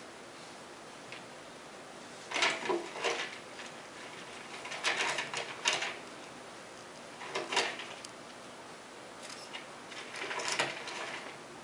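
Pencil scratching on paper in quick sketching strokes, in four short bursts of scratchy strokes separated by pauses.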